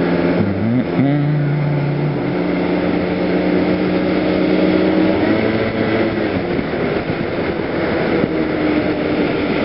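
PGO motor scooter engine running under way. Its pitch dips and climbs again about a second in, then holds fairly steady over a constant rushing noise.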